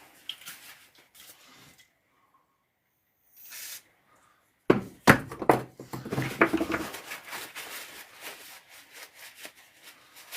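Knocks and rubbing from grinder parts being handled and worked on a bench. After a near-silent gap, a cluster of sharp knocks comes about five seconds in, followed by scraping and rubbing that fades off.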